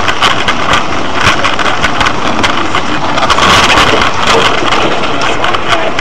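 Heavy rain pelting a car's windscreen and body, heard from inside the car as a loud, dense hiss full of small crackling hits.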